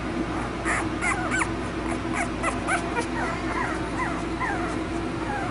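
Eight-day-old puppies squeaking and whimpering in a litter pile: a run of short, high squeaks that rise and fall, about three a second.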